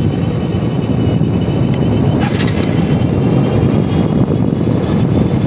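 Motorbike coasting downhill in neutral with its engine off: steady, loud wind rush over the microphone mixed with the rumble of tyres rolling on a rough road.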